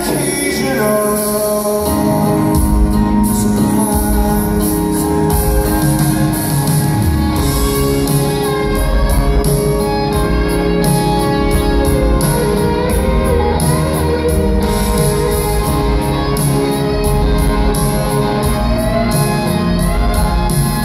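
Rock band playing live, heard from the audience: electric guitars, drums and keyboards, with singing at times.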